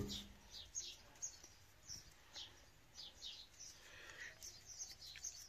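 Small birds chirping faintly in the background: a string of short, high, falling chirps, about two to three a second.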